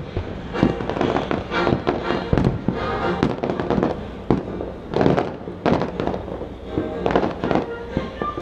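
Fireworks shells bursting in a rapid, irregular string of booms and crackles, several a second, with the loudest about five and seven seconds in. Show music plays underneath throughout.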